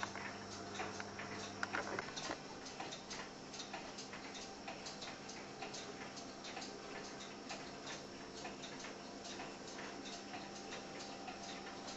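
OO gauge model train coaches rolling along the track, their wheels clicking over the rail joints in a rapid, uneven ticking, over a faint steady hum.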